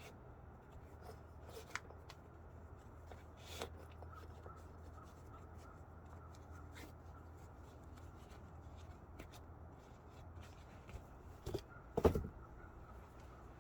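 Faint rubbing, rustling and light clicks of leather sneakers being handled and pulled on, over a low steady hum. There is a short cluster of louder soft knocks about eleven and a half to twelve seconds in.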